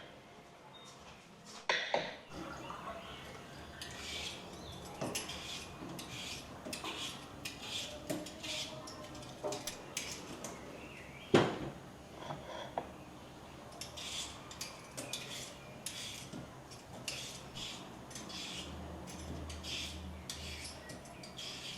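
Dishes and cutlery clinking, with many light taps and clicks and one louder knock about eleven seconds in.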